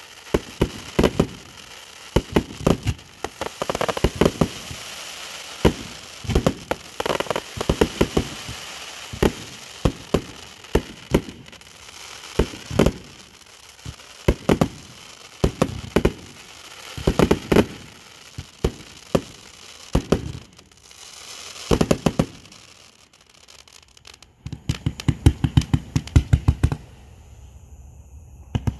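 Clusters of loud, sharp cracks and pops every few seconds, then a quick, evenly spaced run of pops about 25 seconds in.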